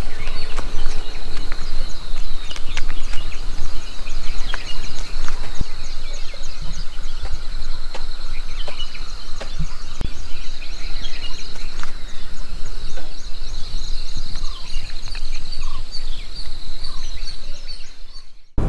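Countryside ambience: birds calling over a steady, rapidly pulsing high-pitched insect chorus, with a low rumble underneath. It fades out near the end.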